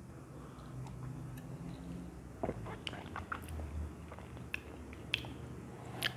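Mouth sounds of a man tasting a sip of a drink: scattered wet lip smacks and tongue clicks, starting a couple of seconds in, over a faint low room hum.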